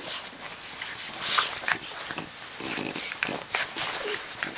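French bulldog making a series of short, breathy snorts and huffs during rough play.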